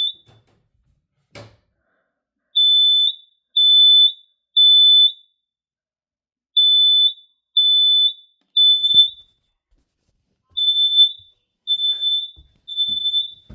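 Smoke detector sounding its test alarm while its test button is held down: a high-pitched beep in repeated groups of three, with a pause between groups. There is a single click about a second in.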